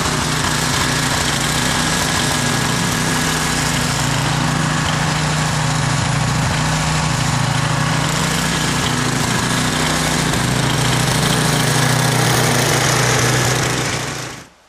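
Ariens two-stage snowblower engine running steadily as the machine is pushed along clearing snow, a steady engine hum that cuts off suddenly near the end.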